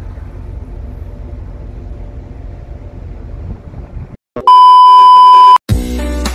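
Wind buffeting the microphone over the steady low rumble of a ship under way at sea. After about four seconds this cuts off, followed by a loud, steady electronic beep lasting about a second, and then acoustic guitar music starting near the end.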